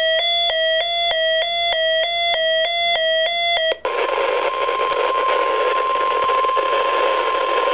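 Reecom R-1630 weather radio sounding its alert: a rapid repeating electronic beep, which cuts off about four seconds in. It gives way to the radio's broadcast audio: the steady NOAA Weather Radio 1050 Hz warning alarm tone over heavy static from poor reception.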